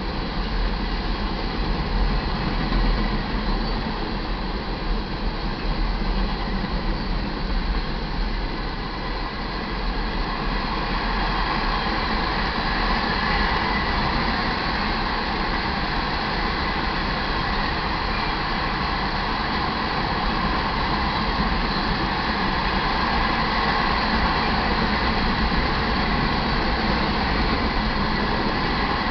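Iron ore hopper cars rolling past on the main track: a steady rumble and clatter of steel wheels on rail, a little louder from about ten seconds in.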